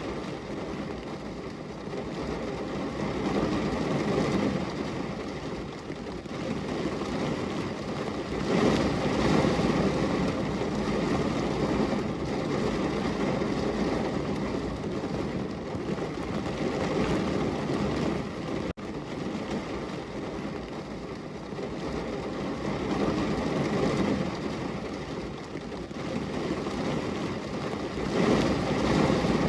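Heavy rain pouring down on a window, a steady rushing hiss that swells and eases every few seconds and cuts out for an instant about two-thirds of the way through.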